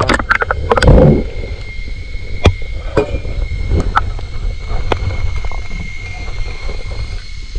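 Muffled underwater sound picked up by a submerged camera: a steady low rumble with scattered sharp clicks and knocks, and a faint steady high whine. There is a louder rushing swell about a second in.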